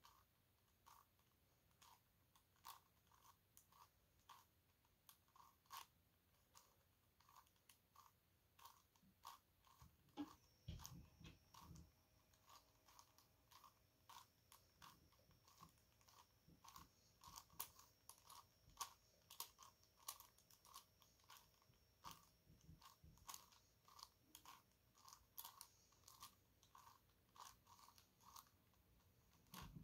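Plastic pieces of a 5x5-layer dodecahedron puzzle (a Gigaminx) clicking and clacking faintly as its faces are turned, a quick series of short clicks, about one or two a second. A low thump about ten seconds in.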